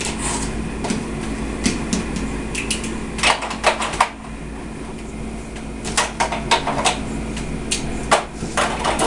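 Small plastic toy figures and vehicles clicking and clattering as they are handled and set down on a desk, in three short flurries of clicks over a low steady hum.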